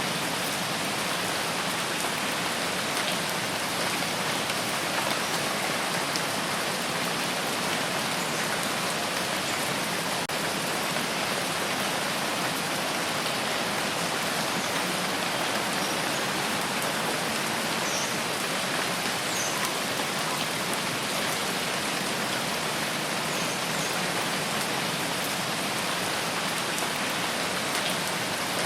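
Steady rain falling, an even, unbroken hiss, with a few faint high chirps about two-thirds of the way in.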